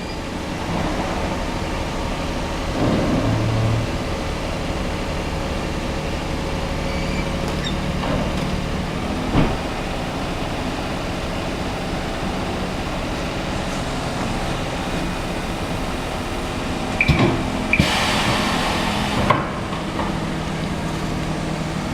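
Hybrid brake-and-speedometer roller tester running steadily with a hum, checked for an abnormal noise. There is a sharp knock about nine seconds in, and a louder rushing burst with clicks around eighteen seconds.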